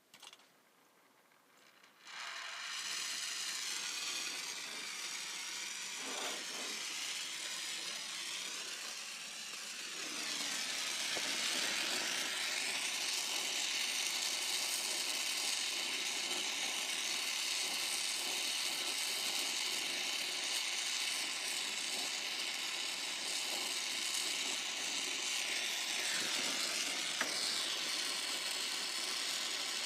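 Brazing torch flame hissing steadily while a copper HVAC line joint is brazed; it starts abruptly about two seconds in and grows louder about ten seconds in.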